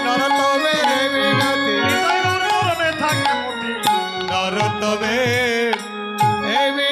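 Bengali devotional kirtan music: a man singing long, ornamented melodic lines over sustained keyboard notes, with hand-drum strokes about twice a second.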